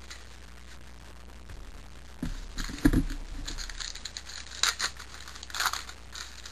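A trading-card pack being handled and torn open: a thump about three seconds in, then crinkling, ripping sounds from the wrapper.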